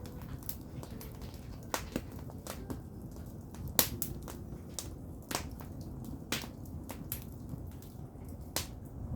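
Firewood burning: irregular sharp crackles and pops over a steady low rumble of the fire, with the loudest pop about four seconds in.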